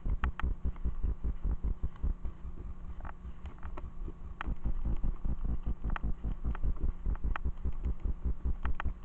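Rapid low thumping and rattling as a mountain bike rolls over a bumpy path, with sharper clicks now and then.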